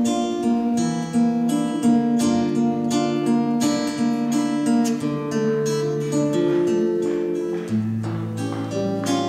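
Classical guitar played solo: an instrumental passage of plucked chords and notes over held bass notes, with no voice.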